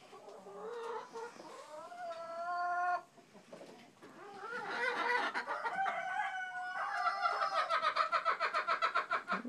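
Chickens calling: a drawn-out call of about two and a half seconds that cuts off sharply, then after a short pause a longer call that breaks into rapid, evenly pulsed clucking near the end.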